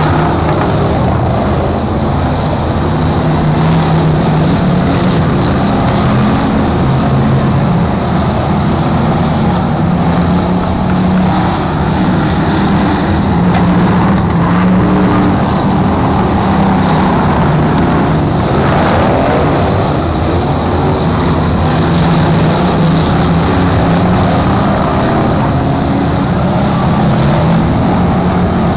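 A pack of dirt-track stock cars racing on an oval, several engines running hard at once, loud and continuous, their pitch rising and falling as the cars go round.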